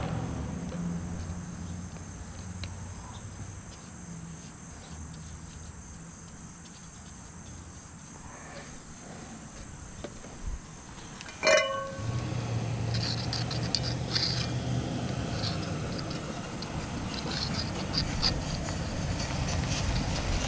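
A single sharp metal clang about halfway through that rings on briefly with several clear tones, like a steel part or tool struck or dropped; after it a low steady motor hum sets in, over a constant high-pitched insect-like drone.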